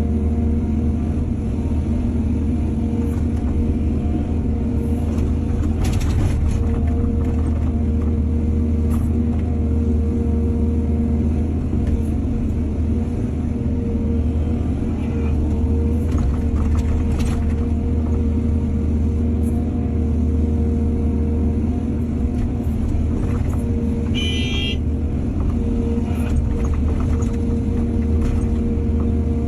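Excavator's diesel engine running steadily, with a few faint knocks and a brief high-pitched squeal late on.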